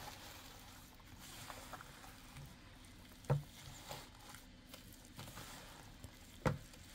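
Gloved hands kneading and squishing a wet raw meatloaf mixture of ground meat, eggs, breadcrumbs and milk in a plastic bowl: faint soft squelching and patting, with a brief soft knock about three seconds in and another near the end.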